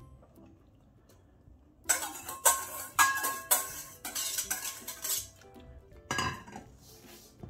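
Wire whisk scraping and knocking against the inside of a stainless steel mixing bowl as batter is scraped out of it, a rapid run of metallic clinks that ring briefly. About six seconds in, a single heavier clunk as the metal bowl is set down on the counter.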